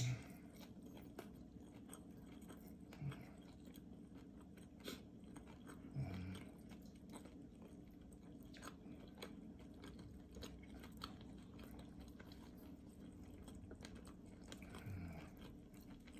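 Faint chewing and biting of fried takeout food, a crisp egg roll and fried rice, with small scattered mouth clicks and a few brief low sounds over a steady low room hum.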